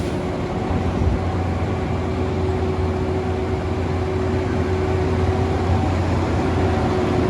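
Heavy diesel truck engines of a concrete pump truck and a ready-mix mixer truck running steadily, with a deeper drone coming in about a second in.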